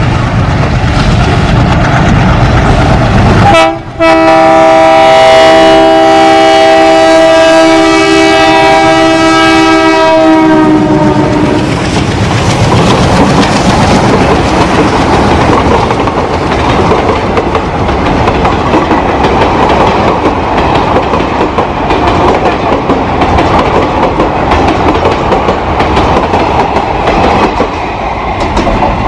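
ALCo diesel locomotive passing: rumbling at first, then a long steady multi-tone horn blast of about seven seconds starting about four seconds in, then the train running by with continuous wheel clatter over the rail joints.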